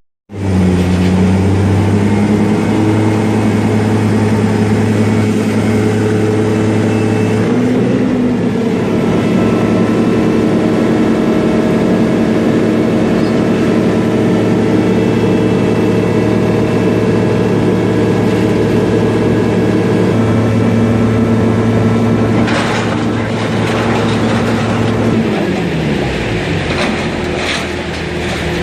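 The shear baler's power unit running steadily with a loud, even hum. Some metal clanking about three quarters of the way through, and near the end the hum's pitch drops steeply and then climbs back up.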